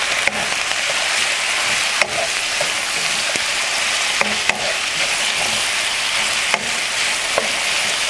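Broccolini, carrots and red pepper sizzling in a hot wok with a steady hiss while a wooden spatula stirs them. The spatula gives a few sharp knocks against the pan along the way.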